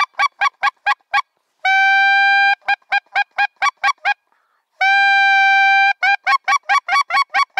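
Goose call used as a hunting lure, sounding a fast even run of short clucks about five a second, broken twice by a long steady honk of about a second.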